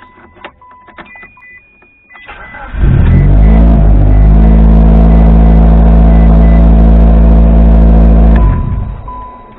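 Mitsubishi Lancer Evolution IX's turbocharged four-cylinder engine cranking briefly and catching almost at once, then running steadily and loudly for about five seconds before it is switched off near the end. The start comes right after a makeshift fix to the car's loose, failing ignition switch.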